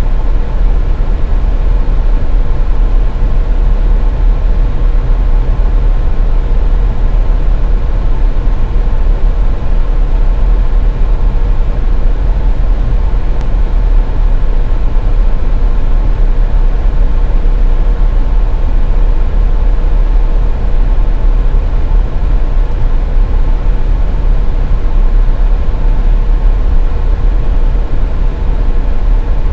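Steady low rumble of a car driving on a snowy highway: tyre and road noise with engine drone, unchanging throughout, with a faint steady hum on top.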